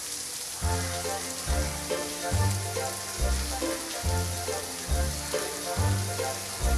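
Steady hiss of falling rain, with instrumental music coming in about half a second in, its bass notes changing about once a second.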